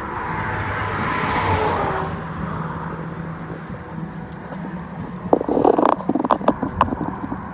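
Road traffic: a vehicle passes with a swelling whoosh and a falling tone in the first two seconds, over a steady low hum. Near the end comes a run of short, loud rustling and knocking noises.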